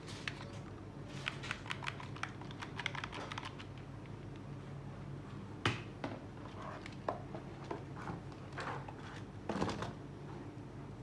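Small clicks and taps of hands handling a toy remote-control car and its packaging: a quick run of clicks early on, one sharper knock about halfway through, and a few more taps near the end.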